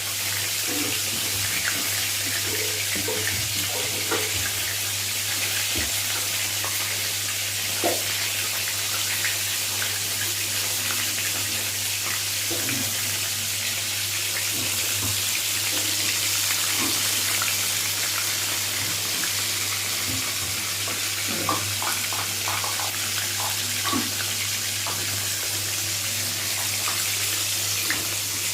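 Battered chicken leg pieces deep-frying in hot oil: a steady sizzling hiss, with occasional light clicks.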